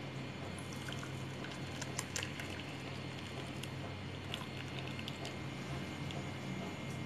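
Hot milky tea pouring through a plastic mesh tea strainer into a ceramic cup, a faint trickle and splatter with a few small clicks, over a steady low hum.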